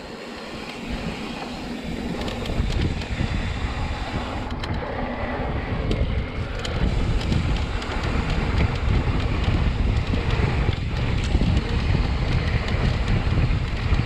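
Wind buffeting the microphone of a moving mountain bike on a dirt trail, a steady low rushing noise that builds over the first couple of seconds as the bike gathers speed, with a few faint clicks.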